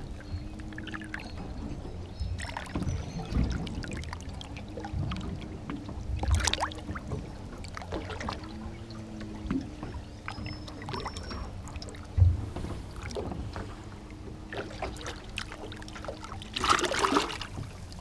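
River water sloshing and lapping around a hand and fish lip grip held in the water while a flathead is revived, with a few dull knocks and a faint humming drone that wavers slightly in pitch underneath. A louder burst of splashing comes near the end.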